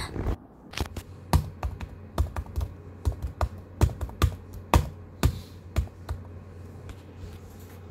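Typing on a computer keyboard: quick, irregular keystrokes that thin out about six seconds in.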